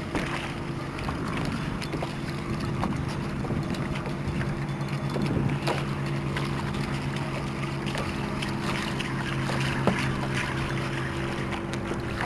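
Small boat's motor running with a steady hum at trolling speed, with wind on the microphone and a few faint clicks.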